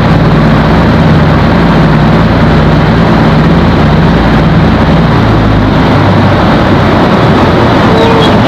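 The PBY-5A Catalina's two Pratt & Whitney R-1830 radial engines, about 1200 hp each, heard from inside the aircraft as a loud, steady drone. Their note drops a little about five to six seconds in.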